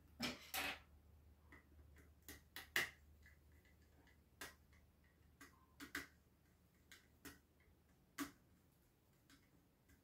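Faint, scattered clicks and rustles of a small circuit board and its power cable being handled, about a dozen light ticks at irregular intervals.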